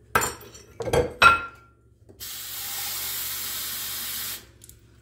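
A few clattering knocks and clinks of utensils against a metal pot, then a kitchen tap running steadily for about two seconds, filling a mug with water, and shutting off.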